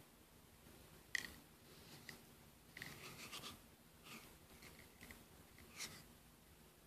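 Faint handling noises in a quiet small room: a sharp tap about a second in, then soft clicks and rustles as a plastic drink bottle is turned in the hands.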